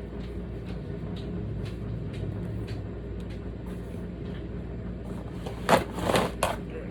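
A spoon scraping and knocking against a pan while pasta salad is scooped and stirred, with a few louder scrapes near the end, over a steady low hum.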